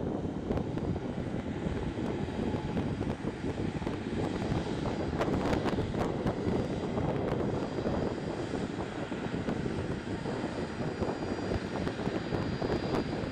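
Small business jet on approach to land, its engines giving a steady noise, with a faint high whine coming in during the second half.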